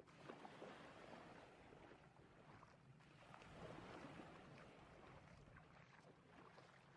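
Near silence: faint room tone with two soft swells of low noise.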